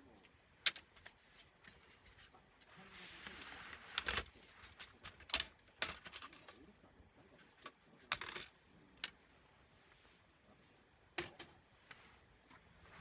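Scattered sharp clicks and taps of small plastic and metal laptop parts and tools being handled during disassembly, with a short scraping rasp about three seconds in.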